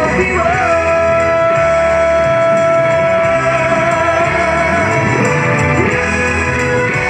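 A song with a singer holding one long note for about four seconds, then moving to a lower note near the end.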